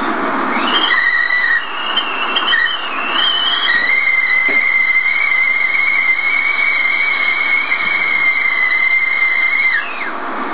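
Stovetop kettle whistling: a breathy hiss breaks into a high whistle about half a second in. The whistle wavers in pitch at first, then holds steady, and near the end it drops in pitch and stops.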